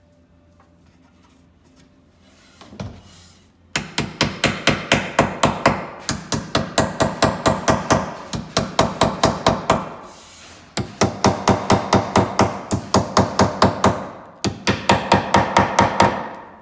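Mallet tapping flat cedar plugs into the glued screw holes of a Western Red Cedar Adirondack chair arm. The taps come in quick runs of about five a second, three runs with short pauses between, after a single knock about three seconds in.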